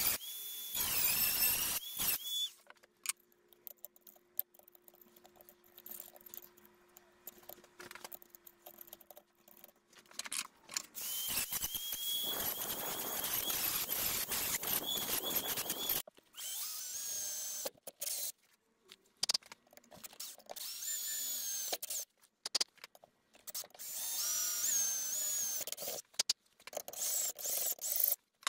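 High-speed rotary tool with an abrasive cutoff wheel grinding into a chainsaw's steel muffler cap to enlarge its exhaust ports. It gives a high-pitched whine over a grinding rasp, in several bursts broken by sudden stops, with a quieter spell early on.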